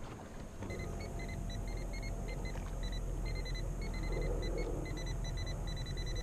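Watersnake electric trolling motor on a kayak running, starting about half a second in as a steady low rumble with a constant hum. A rapid, irregular run of short high-pitched pips sounds over it.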